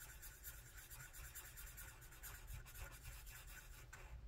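Faint scratching of a marker colouring in a small square on a paper chart, in quick repeated back-and-forth strokes.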